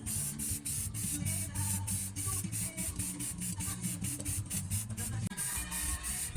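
Music with a fast, steady hi-hat beat over deep bass notes.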